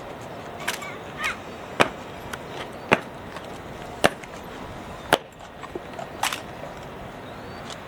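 Honor guard rifle drill: a string of sharp slaps and knocks from rifles being handled, some loud and about a second apart.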